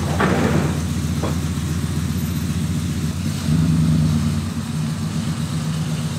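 A 1993 Chevrolet C3500 dually pickup's engine running as the truck pulls away, briefly revving louder and higher about three and a half seconds in as it accelerates. A couple of short knocks sound in the first second and a half.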